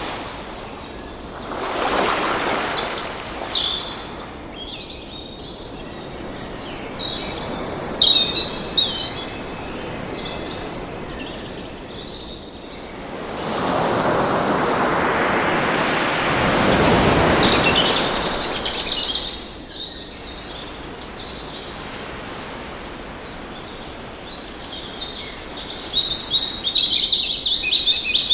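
Birds chirping and trilling over the wash of ocean waves. A short surge of surf comes about two seconds in and a longer one from about halfway, fading by two-thirds through; the bird calls are busiest near the end.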